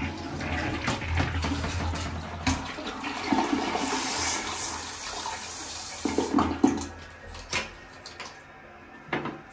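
Handheld bidet sprayer jetting water into a toilet bowl: a steady rushing splash that dies away about a second before the end. A few louder splashes or knocks come about two thirds of the way through.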